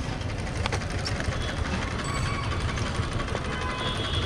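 Street traffic noise: a steady low engine rumble with a few light clicks.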